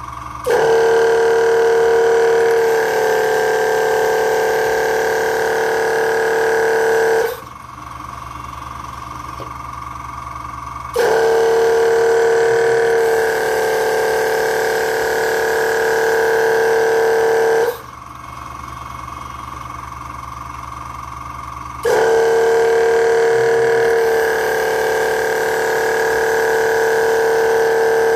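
Automated gantry mushroom-picking robot running in repeating cycles. A loud, steady mechanical whine with several pitches comes on three times for about six to seven seconds each, stepping slightly lower in pitch a couple of seconds into each run. Between runs a fainter steady tone carries on.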